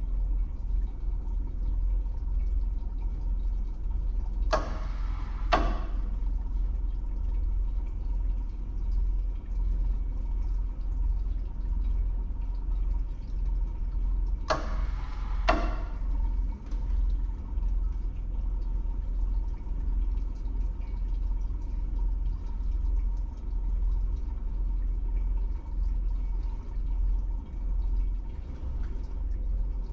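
Solenoid coolant valve of a cryostat for a spectrophotometer ticking as it opens and closes. Two pairs of ticks, each pair about a second apart, come about five seconds in and again about ten seconds later, as the valve cycles to hold the −50 °C set point. A steady low hum runs underneath.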